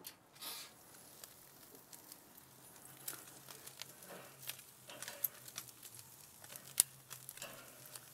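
Sardines faintly sizzling and crackling on a charcoal grill, with a few sharp clicks of metal tongs against the grate as the fish are turned; the loudest click comes near the end.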